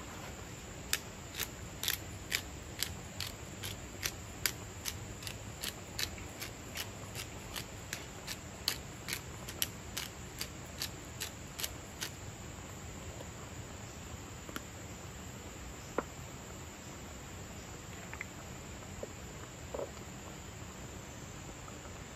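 Small hand spice grinder being twisted: a run of regular sharp clicks, about two or three a second, for around eleven seconds, then stopping, with a few stray clicks later, over a steady background hiss.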